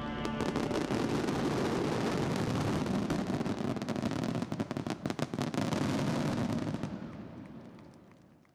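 Fireworks display: a fast, dense barrage of aerial shells bursting, dozens of overlapping bangs and crackles, which dies away over the last second and a half.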